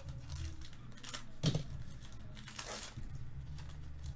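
Foil wrapper of a Topps Chrome baseball card pack crinkling as it is handled and opened, in a few short crackles, the sharpest about one and a half seconds in. A low steady hum runs underneath.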